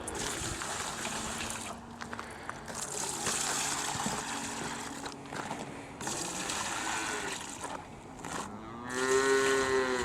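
A young dairy calf bawls once near the end, a single call rising then falling in pitch, over a steady rushing background noise.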